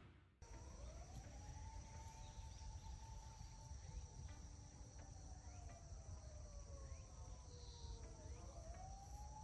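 Quiet outdoor ambience: a steady high-pitched insect drone, with a faint tone that slowly sinks and then rises again near the end, and a few faint short chirps.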